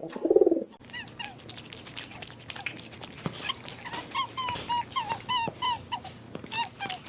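A loud low call in the first second, then many short, high-pitched whimpering calls of a dog or pups, overlapping and repeating several times a second.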